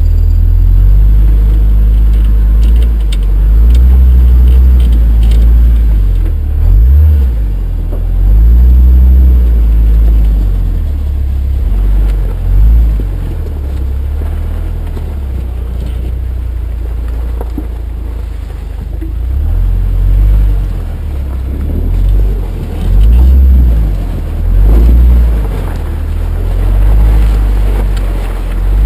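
Off-road vehicle's engine and drivetrain running as it crawls over rough ground, heard from under the chassis as a heavy low rumble. The engine's pitch rises and falls with the throttle, swelling every few seconds.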